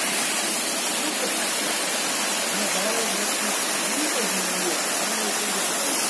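Waterfall pouring down a rock face into a pool: a steady rush of falling water. A faint voice comes through in the middle.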